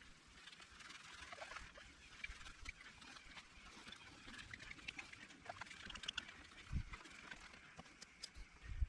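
Faint, irregular rubbing and squeaking of hand polishing on a plastic headlight lens.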